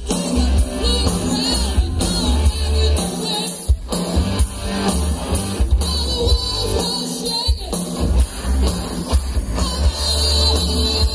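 Live rock band playing, with electric guitars, drums and a singer, heard through the concert's PA from within the crowd. The bass and drums drop out briefly twice.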